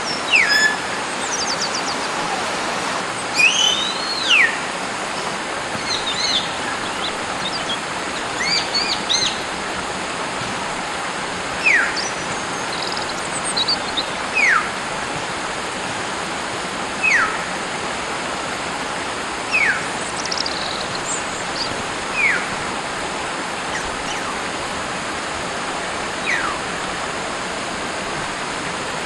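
Hill myna whistling in the wild. Short, clear whistles that drop steeply in pitch repeat about every two to three seconds. In the first few seconds there are scattered chirps and one rising-then-falling whistle, all over a steady background hiss.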